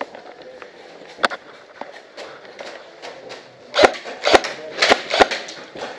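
Footsteps of a person in boots on hard, gritty ground or steps: a single knock a little over a second in, then four heavy steps about half a second apart in the last two seconds.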